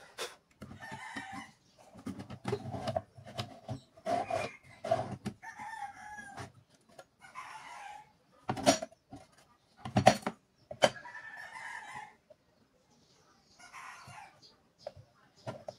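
Chickens clucking and crowing in repeated calls. Sharp knocks of wood and metal cut in as the drawer-slide blocks are handled and set down on the table, the loudest about nine and ten seconds in.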